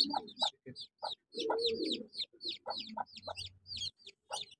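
Chicks peeping: a run of short high chirps, each dropping in pitch, several a second, with an Aseel hen's low clucks in between.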